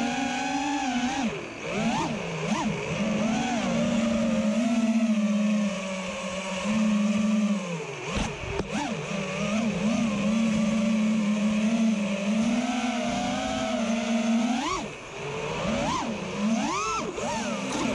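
FPV racing quadcopter's electric motors whining steadily, the pitch swooping up and down sharply several times as the throttle is punched and cut.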